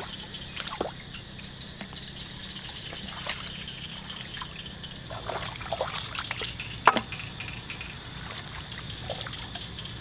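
Shallow muddy paddy water trickling and sloshing as bare feet and hands work through it, with scattered small splashes over a steady high hiss and one sharp slap about seven seconds in.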